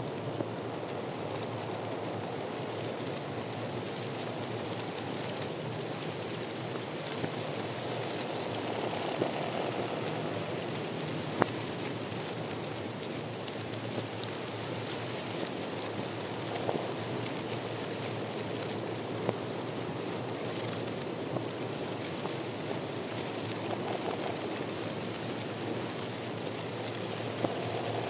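Steady rustling hiss of a walk along a dry pine-forest trail, with scattered small clicks and crackles and one sharper click near the middle.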